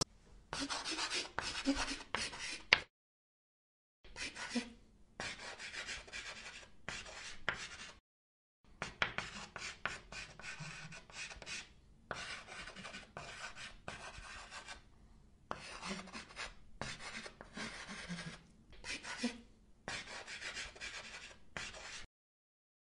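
Chalk writing on a blackboard: runs of scratchy strokes with sharp taps, broken by two short silences and stopping abruptly just before the end.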